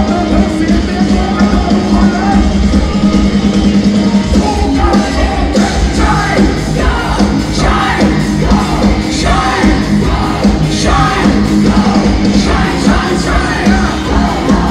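A live rock band playing loudly. Male vocals sing and shout over it from about four and a half seconds in.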